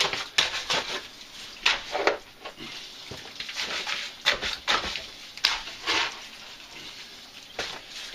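Short-handled digging tool striking and scraping into rock and gravel spoil at the bottom of a mine shaft, in irregular strokes, roughly one or two a second with short pauses.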